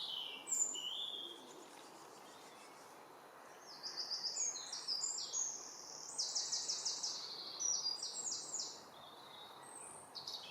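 Common starling singing: a few short whistled notes, then, from about four seconds in, a long run of rapid clicking rattles and squeaky notes that stops a little before the end.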